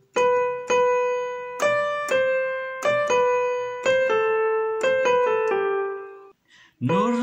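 Electronic keyboard on a piano sound playing a slow melody phrase in Hijaz Kabir mode, note by note. About a dozen notes each ring and fade, with a few quicker notes past the middle. Right at the end, a man's voice begins singing the words of the tune.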